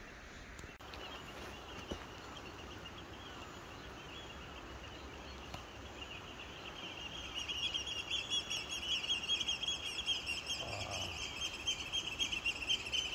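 A small bird singing a rapid, continuous twittering song, growing louder about halfway through. A short low sound comes near the end.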